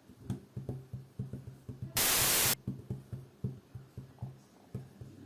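Typing on a homemade keyboard: a quick, irregular run of soft key taps with low thuds. About two seconds in, half a second of loud static hiss cuts across it.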